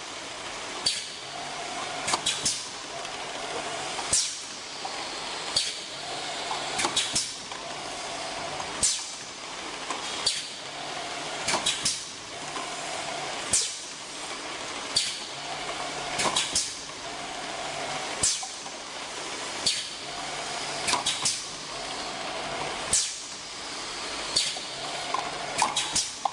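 Four-nozzle high-viscosity sauce filling machine running through its fill cycle: a sharp clack, often doubled, about every one and a half seconds, with a short hum between strokes over a steady hiss.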